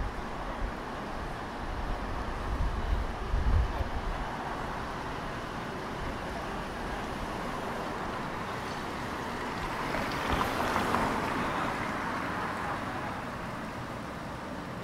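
Street traffic noise, with low wind rumble on the microphone in the first few seconds. About ten seconds in, a passing vehicle swells and fades.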